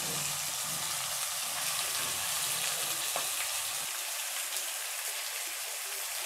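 Marinated boal catfish pieces frying in hot mustard oil in a kadai: a steady sizzling hiss with a few faint pops.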